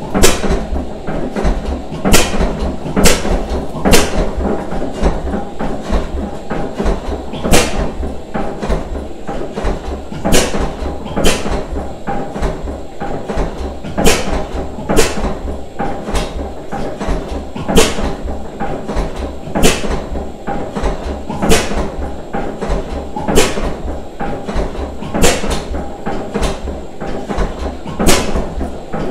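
1891 Andrews 3 horsepower single-cylinder oil engine, converted to run on paraffin, running at a slow, steady speed. Sharp firing cracks come at uneven intervals, roughly one every one to two seconds, over a steady low mechanical thudding.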